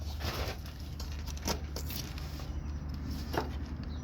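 Scattered clicks and rustling from a new truck cab air bag being clipped onto its mount by hand, the sharpest click a little over three seconds in, over a steady low hum.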